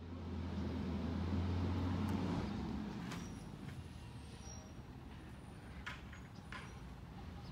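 Low vehicle engine rumble that eases off after about two and a half seconds, leaving a faint steady hum with a few short faint clicks.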